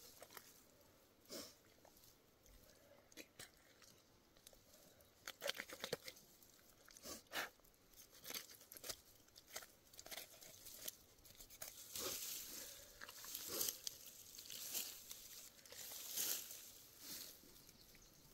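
Hands working inside the opened body cavity of a black bear during field dressing: irregular soft crackles, wet tearing and handling sounds, busier and louder in the second half.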